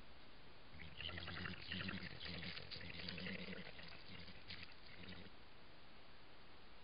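European badger vocalising: a rapid run of low pulsed calls that starts about a second in and stops after about four and a half seconds.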